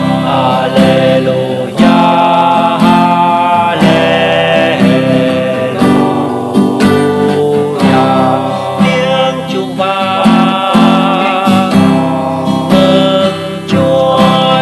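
Music: strummed acoustic guitar accompaniment to a hymn, with a wavering melody line above it.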